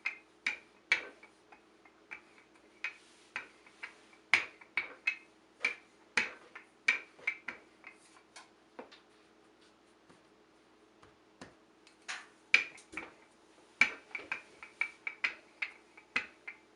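Rolling pin rolling out cookie dough, making irregular sharp clicks and knocks as it goes back and forth, with a lull partway through. A faint steady hum lies under it.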